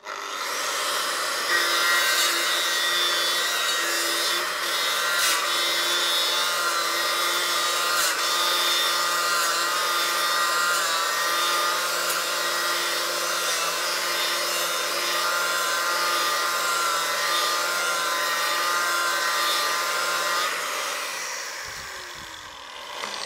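Right angle grinder with a Norton F970X Blaze ceramic fibre disc on a hard ribbed backup pad, grinding rust and paint off a steel beam: a steady motor whine with grinding noise, starting abruptly. About twenty seconds in it is switched off and winds down with a falling whine.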